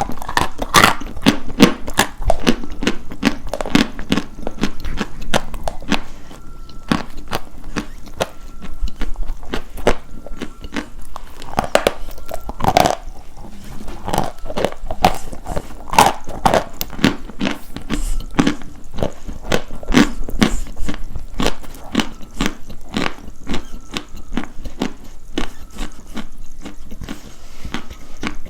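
Dry white chalk being bitten and chewed close to the microphone: a dense, irregular run of crisp crunches and crackles.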